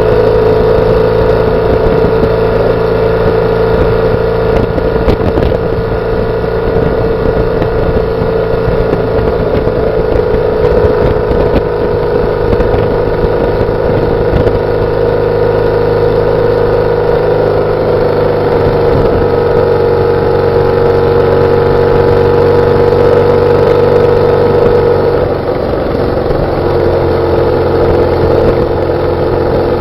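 BMW R850R's air-cooled boxer twin engine and exhaust running steadily, heard close to the exhaust. The engine note eases down slightly about two-thirds of the way through, then dips briefly near the end before steadying again.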